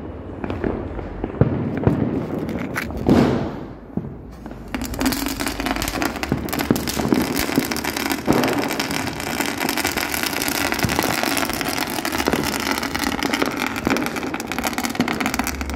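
Small crackling firecrackers going off inside an empty cardboard sky-shot shell tube. A few scattered pops come first; from about five seconds in they run into a dense, continuous crackle of many small bursts as sparks spray from the tube.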